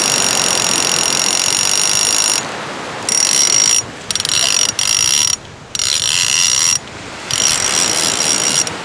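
Big-game conventional fishing reel giving off a loud, high, steady ratcheting buzz as line is pulled off it: a shark has taken the bait and is running. The buzz eases about two and a half seconds in and stops briefly several times before starting again.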